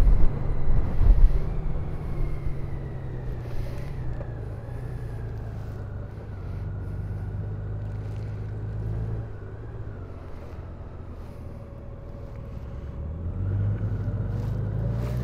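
Honda Gold Wing's flat-six engine running steadily at road speed, heard from the rider's seat with wind rushing over the microphone. The wind noise is louder and gustier in the first couple of seconds; the sound dips in the middle and builds again near the end.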